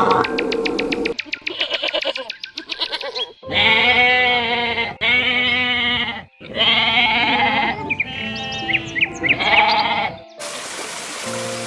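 Sheep bleating: several long, wavering calls in a row. Near the end the sound cuts abruptly to a steady hiss.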